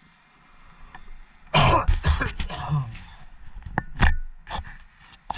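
A person coughing hard and clearing his throat: a rapid run of harsh coughs about a second and a half in, then single coughs near four seconds, again shortly after, and once more near the end.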